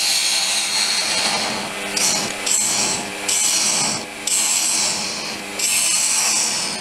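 Homemade forged bowl gouge cutting green oak spinning on a wood lathe: a loud hissing shear in about six passes of up to a second or two each, with short breaks between them. The lathe hums faintly underneath.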